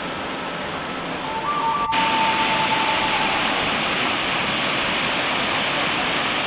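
Steady rush of flowing water from a desert canyon stream or falls, stepping up louder at a cut about two seconds in.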